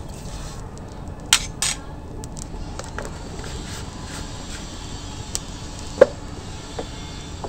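A few light clicks and clinks, the sharpest about six seconds in, from a steel spoon and salt container handled over a steel wok of water heating on a wood fire, over a steady low background noise.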